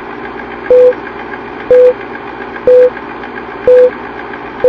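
Old-film countdown sound effect: a short, loud beep once a second, five times in all, over a steady crackling hiss.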